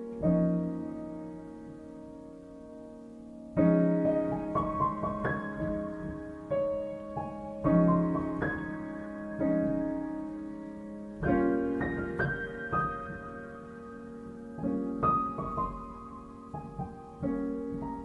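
Gentle piano music: slow chords struck every three to four seconds, each ringing out and fading, with a melody of single notes above them.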